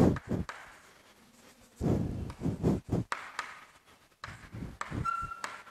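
Chalk writing on a blackboard: scratchy strokes in two spells, with a brief high chalk squeak near the end.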